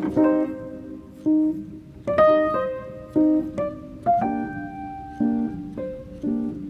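Background piano music: a melody of separate struck notes, each fading after it starts.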